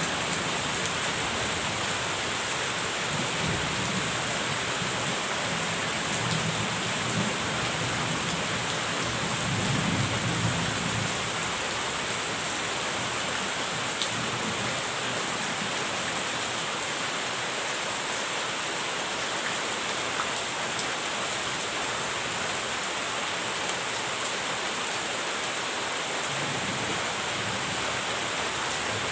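Steady rain falling, with low rolling rumbles of distant thunder, strongest about ten seconds in.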